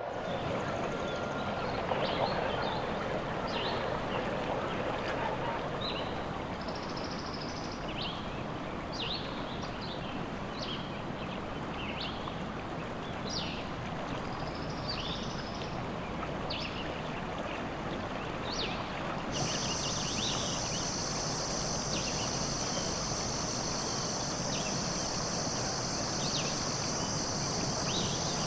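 Forest ambience: a steady rush like running water, dotted with short high chirping calls every second or so. About two-thirds of the way through, a steady high insect buzz, like crickets, comes in and holds.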